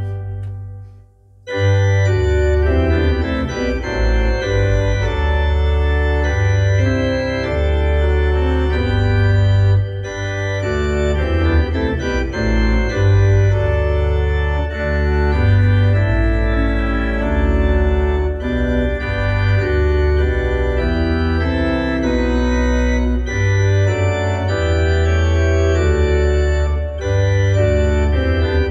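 Organ music: held chords over a deep, moving bass line, breaking off briefly about a second in and then playing on without pause.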